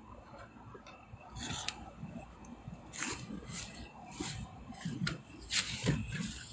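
Irregular rustling and scraping right against the microphone, of a padded jacket rubbing close by, with the scrapes coming thicker and louder in the second half.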